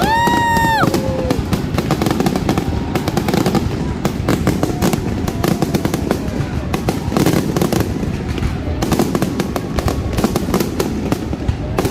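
Fireworks going off in a dense, irregular run of sharp cracks and pops over a low rumble, with crowd voices. A short, high, held tone sounds right at the start.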